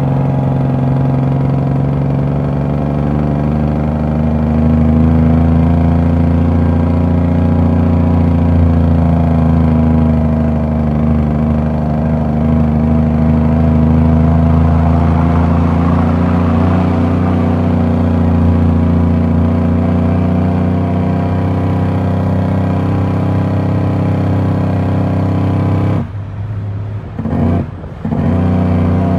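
Heavy diesel truck engine running under way, heard from inside the cab, its pitch rising and falling gently with the throttle. Near the end the sound drops back briefly twice before picking up again.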